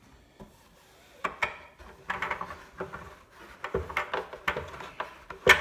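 A vinyl LP turned by hand in a Spin-Clean Mk2 record washer, riding on its plastic rollers while the brush pads scrub both sides. It makes irregular rubbing swishes and light plastic knocks, with a sharp knock near the end.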